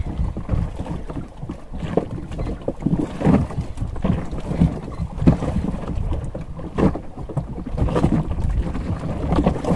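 Wind buffeting the microphone aboard a small fishing boat, a steady low rumble broken by scattered irregular knocks.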